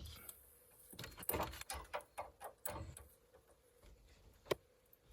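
Scattered light clicks and taps of hand tools against metal while fitting the bottom nut of a new anti-roll bar drop link, with one sharper click about four and a half seconds in.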